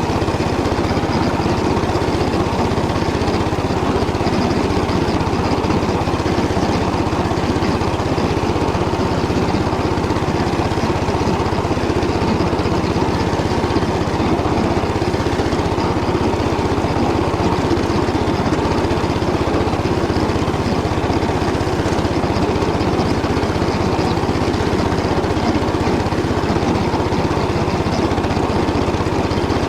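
Walk-behind tractor engine running steadily under load while its rotary tiller churns through stubble, an even mechanical drone with no pauses.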